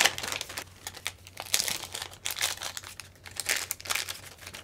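A small plastic parts bag crinkling as it is handled, a run of irregular rustles and crackles, with a sharp click right at the start.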